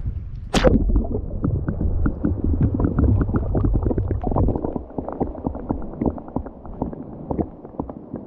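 A splash about half a second in, then muffled underwater bubbling and gurgling with many small pops, as the kayak-mounted camera goes under the lake surface; the low rumble eases off after about four seconds and the pops carry on more quietly.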